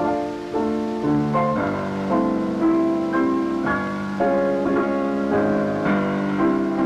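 Piano music, a run of chords and notes changing about every half second, accompanying silent-film footage.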